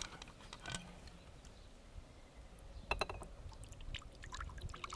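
Water poured from a leather-covered canteen into a glass tumbler, a quiet trickle, with a sharp click about three seconds in and small clinks after it.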